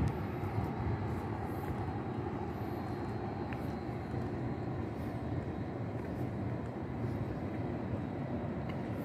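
Steady low outdoor rumble of background noise, with a faint steady high-pitched tone over it.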